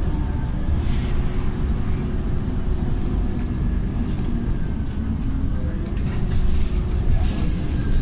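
Scania OmniCity single-deck bus heard from inside the saloon while travelling at speed: a steady low diesel engine and road rumble. A faint engine whine rises in pitch about five and a half seconds in, and a few brief hisses come near the end.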